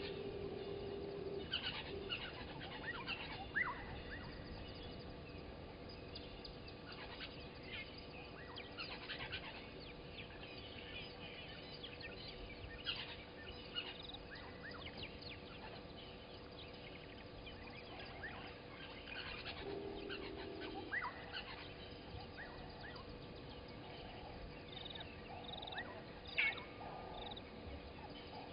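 Morning bird chorus at a bushveld waterhole: many birds chirping and whistling in short, overlapping calls with quick pitch sweeps. Two brief held low notes sound near the start and about two-thirds through, over a faint steady hum.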